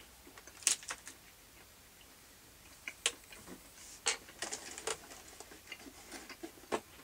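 Quiet, scattered crinkles and clicks of an individually wrapped chocolate's wrapper being handled, a few sharp crackles spread over several seconds with a small cluster past the middle.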